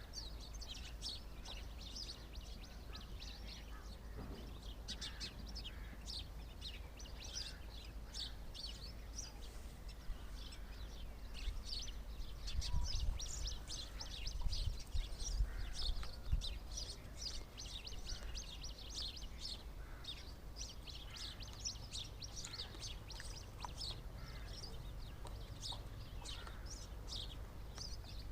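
Birds chirping constantly, many short high chirps overlapping, with a low rumble underneath that swells about halfway through.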